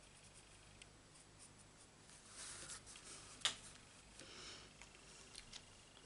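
Faint scratching of an alcohol marker on cardstock and light rustling of the card, with one sharp click about three and a half seconds in.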